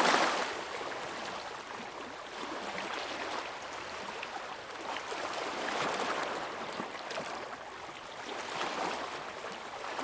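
Shallow sea water at low tide lapping and splashing gently at the shore, swelling and easing in slow surges every few seconds.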